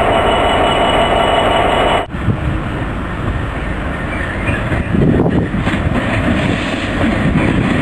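Container freight wagons rolling past close by with a steady rumble and a faint whine from the wheels. It breaks off abruptly, replaced by the low engine rumble of two Freightliner Class 66 diesel locomotives approaching, which grows louder about five seconds in.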